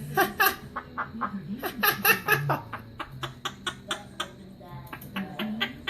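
Quaker parrot (monk parakeet) chattering in short, harsh squawks and chirps: a few near the start, a louder burst about two seconds in, then a quick run of chirps.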